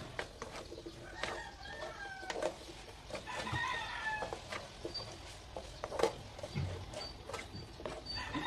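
Chickens clucking, with a rooster crowing for about a second some three seconds in, over sharp taps and scrapes of a nylon slotted spatula stirring food in a metal wok.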